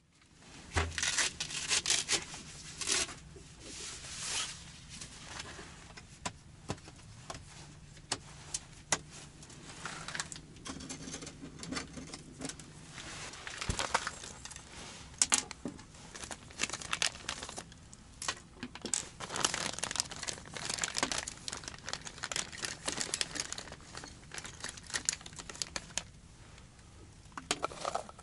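Plastic packaging crinkling and rustling in irregular handfuls, with small clicks and knocks, as fishing tackle is unpacked and sorted by hand.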